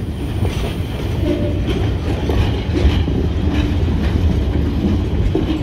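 Freight cars loaded with pulpwood rolling past on the rails: a steady low rumble of steel wheels on track, with scattered clicks and a few short squeaks.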